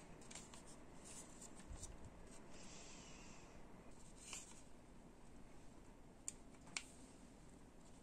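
Near silence with faint rustling and small ticks of plastic model-kit parts being handled, and two sharper clicks a little after six seconds in, half a second apart.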